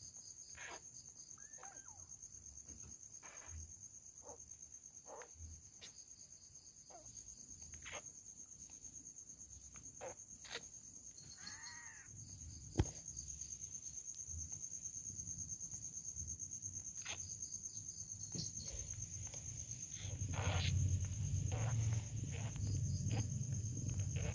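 Crickets chirp steadily and faintly, with scattered tiny squeaks and mews from newborn kittens. From about three-quarters of the way in, the mother cat purrs, a low rumbling pulse.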